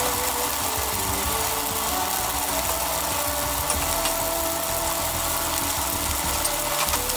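Steamed yakisoba noodles frying in oil in a frying pan, a steady sizzle while they sit untouched so the underside crisps.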